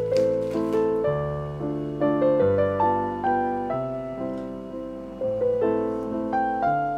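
Background piano music: a gentle melody of struck notes, about two a second, each fading after it is played, over lower held notes.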